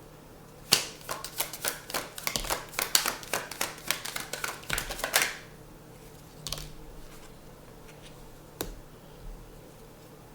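Tarot cards being shuffled by hand: a quick run of crisp card snaps and flicks lasting about four and a half seconds, then a couple of single soft taps, likely cards being set down.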